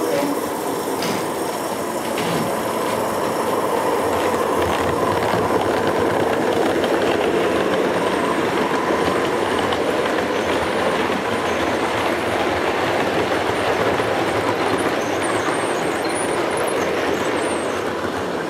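0 gauge model train running past on the layout: a steady rumble of wheels on rail that grows louder about four seconds in and holds as the coaches go by.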